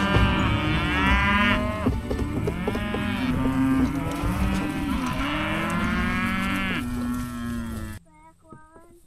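A herd of cattle mooing and bellowing, many calls overlapping at once. The sound cuts off suddenly about eight seconds in.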